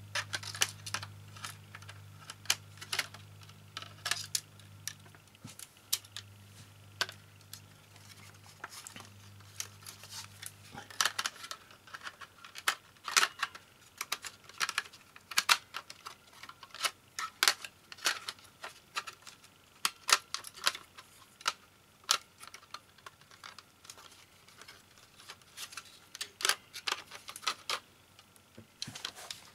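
Irregular clicks and clacks of plastic and metal parts being handled and pried at while a Mac mini's optical drive and fan assembly is worked loose by hand. A faint low hum runs under it and stops about eleven seconds in.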